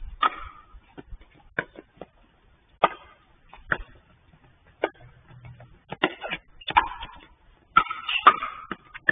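Pickleball paddles striking a hard plastic ball in a doubles rally: a series of sharp pops at uneven intervals, coming quicker in the second half as the players trade fast volleys at the net.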